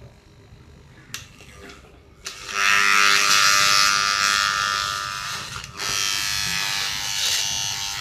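Steel lamination stamping buzzing loudly against the live core of a transformer as it is pushed in; the strong magnetic field makes it vibrate. The buzz starts about two seconds in and briefly drops out near six seconds. There is a sharp click just after one second.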